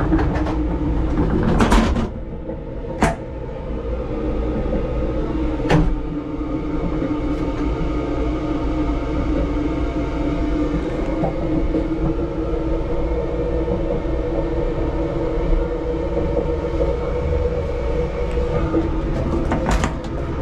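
Keisei Skyliner train running, its steady rumble and hum heard from inside the small toilet compartment. A few sharp clicks and knocks come in the first six seconds and again just before the end.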